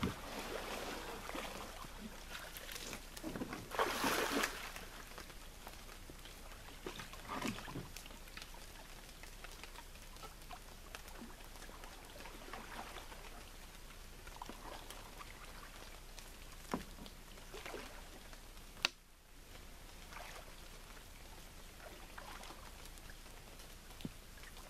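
Lake water splashing as a canoe is pushed off and waded out, the loudest splashes in the first few seconds, then fainter splashes of paddle strokes as it moves away, over a steady faint hiss. A single sharp click sounds about nineteen seconds in.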